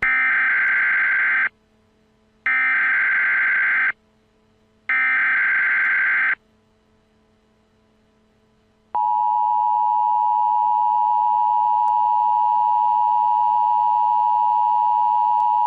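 Emergency Alert System tones: three equal bursts of SAME header data, each about a second and a half long, then a quiet gap, then the steady two-tone EAS attention signal starting about nine seconds in and holding to the end.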